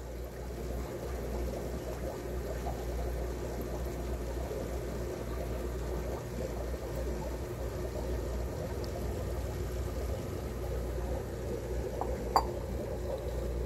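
Water pouring and sloshing as a bowl of shrimp and acclimation water is tipped into an aquarium, over a steady low hum. A single short knock near the end.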